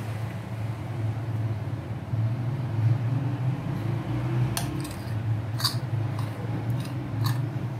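A metal spoon clinking and scraping against a ceramic mixing bowl a few times in the second half as cake batter is scooped out, over a steady low hum.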